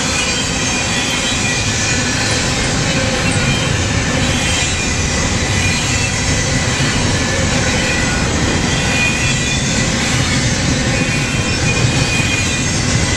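Norfolk Southern intermodal freight train's double-stack container cars rolling past close by: a steady, loud rumble of steel wheels on rail, with faint high wheel squeal coming and going.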